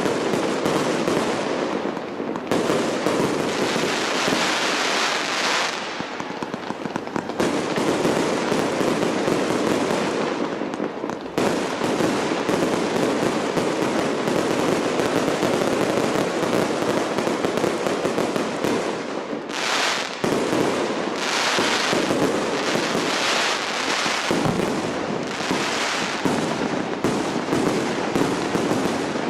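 Large professional fireworks display going off in a dense, continuous barrage of bursts, with no real pause and its intensity shifting every few seconds.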